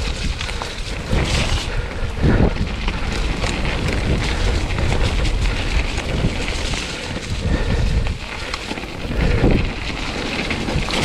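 Wind buffeting the microphone over the rattle and tyre noise of a mountain bike riding down a wet, muddy trail, with many small knocks and clatters from the bike.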